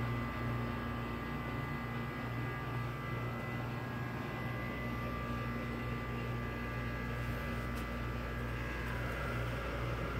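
Schindler inground hydraulic elevator's submersible pump motor running and lifting the car, a steady hum pitched around B-flat with a fainter high whine over it, heard through the closed machine-room door.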